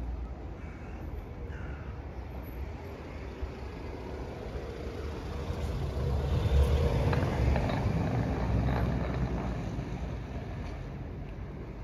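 A motor vehicle passing by, its rumble growing to its loudest a little past the middle and then fading away.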